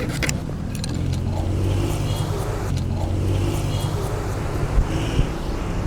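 A steady low mechanical hum, like a motor or engine running, with two short knocks near the end.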